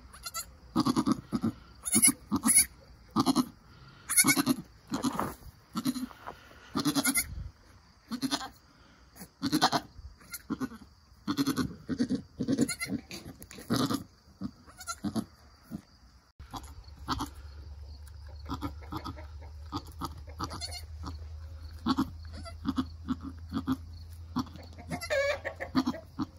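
Nigerian Dwarf goats, a doe and her newborn doeling, bleating: many short calls in quick succession, with a higher-pitched bleat near the end. From about two-thirds of the way in, a steady low hum runs underneath.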